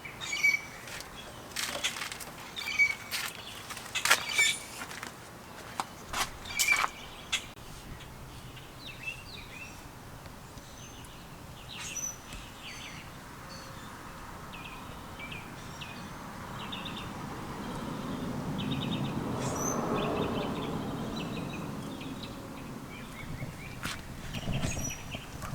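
Birds calling outdoors: a run of sharp, loud calls over the first several seconds, then quieter chirps and trills. Partway through, a low rushing sound swells up, peaks about three-quarters of the way in and fades away.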